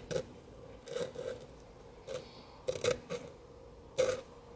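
Sandpaper rubbed across the contact points of a Nelson Brothers hit-and-miss engine's igniter in several short, irregular scraping strokes, lightly cleaning the fuel-fouled points.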